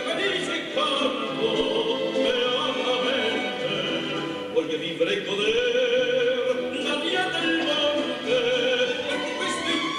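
Operatic singing with accompaniment, the voice held on long notes with a wide vibrato.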